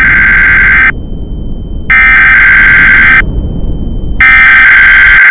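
Emergency Broadcast System alert tone from a television: a loud, harsh buzzing alarm sounding in three blasts of a little over a second each, with a faint high steady whine in the gaps and low rumbling noise underneath.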